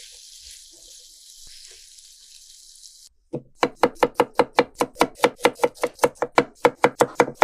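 Potatoes and onion sizzling as they fry in a pan, which cuts off after about three seconds. Then a knife slices rapidly on a cutting board, about five even strokes a second, cutting carrots into slices.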